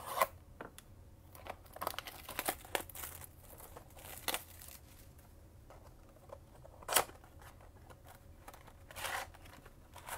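Plastic shrink-wrap crinkling and tearing as a sealed blaster box of trading cards is unwrapped, with the cardboard box being opened and handled. It comes as a string of short, irregular crackles and snaps.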